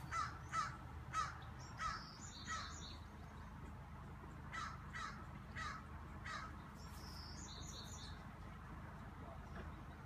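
A series of short, harsh cawing calls, each dropping slightly in pitch: five in about two and a half seconds, then four more a couple of seconds later. Faint, higher bird chirps come in between the two runs.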